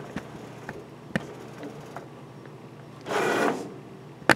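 Homemade servo-driven CNC router running as a pen plotter, with a steady hum from the drives and scattered sharp clicks. A short, louder rushing sound comes a little after three seconds, and a sharp click comes near the end.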